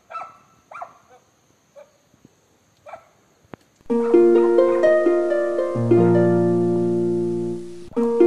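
A dog barks a few times, in short separate barks; about four seconds in, background music of plucked, harp-like notes starts and becomes the loudest sound.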